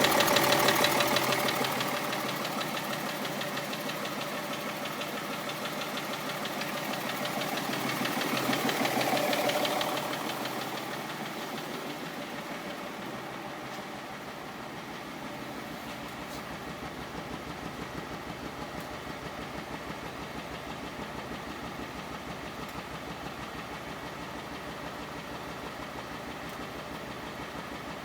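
BMW 330cd's 3.0-litre straight-six diesel engine running with a rhythmic knock. It is louder near the start and again about eight to ten seconds in, then settles to a steady idle. The noise is the sign of an intake swirl-flap screw that had dropped into a combustion chamber.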